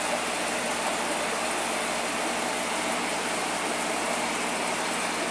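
Steady hum and hiss of aquarium equipment, the constant running of pumps and water flow in the tank.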